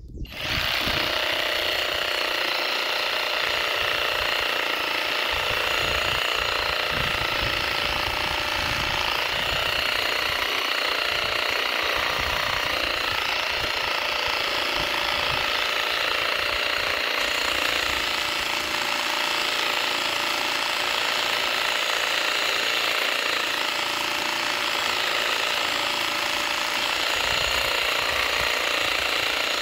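SKIL SW1E3475CA 20V brushless cordless reciprocating saw cutting through a log. It starts at once and runs steadily, the blade rasping rapidly back and forth through the wood.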